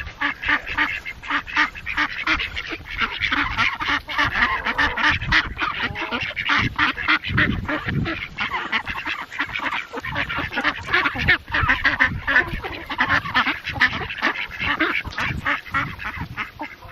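A flock of domestic ducks quacking and chattering without a break while they feed on scattered grain, their short calls overlapping in a dense, rapid clamour.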